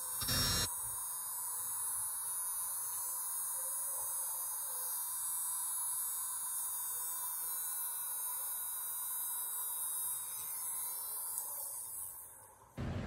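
A small electric grinder runs steadily, grinding down the lid hinge of a Zippo lighter to fit it, with a constant high hiss over a steady whine. It fades and stops about a second before the end.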